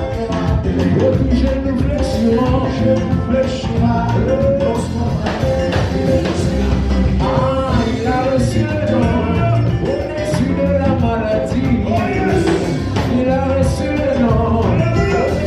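Live worship band playing a song with sung vocals over a steady drum beat.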